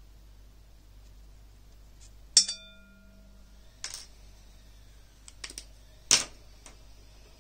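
Sharp clicks and knocks of small hard objects being handled and set down: a loud knock about two and a half seconds in that rings briefly, lighter clicks after it, and a second loud click about six seconds in.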